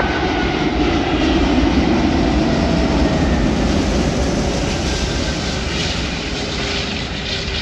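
Jet engine noise from a landing Qantas Airbus A380-842, its four Rolls-Royce Trent 900 engines, heard as a steady roar with a falling whine that fades slowly as the aircraft passes.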